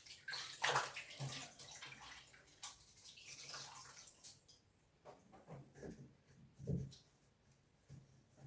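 Cleaning rag swished and splashed in a container of water for about four seconds, followed by a few soft knocks.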